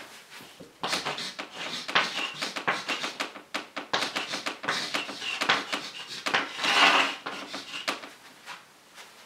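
Chalk writing on a blackboard: a rapid run of taps and short scratches as the letters and an arrow are drawn, from about a second in until near the end.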